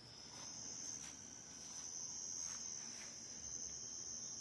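Steady high-pitched trilling of insects, unbroken throughout, with a few faint ticks.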